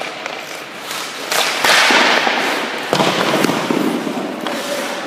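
Hockey skate blades scraping and carving on the ice as a skater drives in with the puck, with sharp clacks of a stick on the puck about a second and a half in and again about three seconds in.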